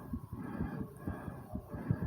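A person's fast heartbeat recorded close up: a quick run of low, dull thumps. Heavy breathing rushes and fades behind it. The heart is racing and the breath is hard right after a set of squats.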